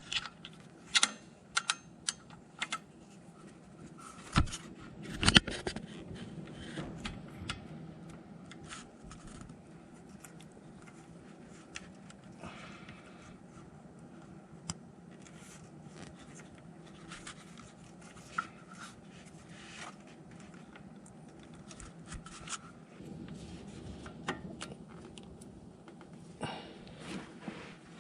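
Scattered small clicks, taps and scrapes of hands working a plastic coilover adjustment knob and its O-ring onto the damper's compression adjuster, with one louder knock about five seconds in.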